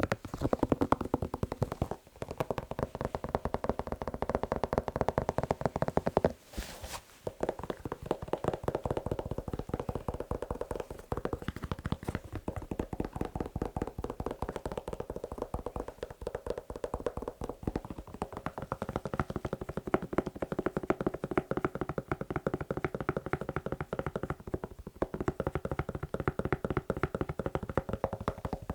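Fast, continuous tapping on a shoe, many taps a second with a hollow ringing tone, broken by a short pause about two seconds in and another around seven seconds.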